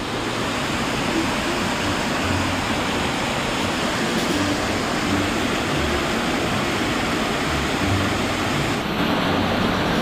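Waterfall pouring onto rocks and into its plunge pool, heard close up as a steady, loud rushing.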